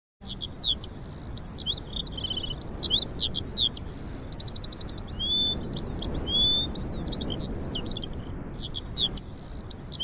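Songbirds chirping and whistling in a busy mix of short calls, upward-sliding whistles and rapid trills, over a low background hiss, with a brief pause a little after 8 seconds.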